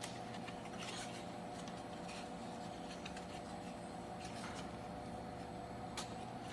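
Paper card being handled and folded: scattered soft rustles and scrapes over a steady hum.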